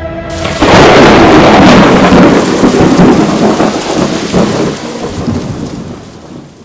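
A loud thunder-like sound effect: a crash that comes in suddenly about half a second in, with crackling and a deep rumble, then fades away over the next six seconds.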